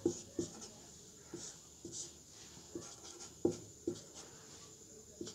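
Marker pen writing on a whiteboard: a string of short, faint strokes and light taps as letters are drawn.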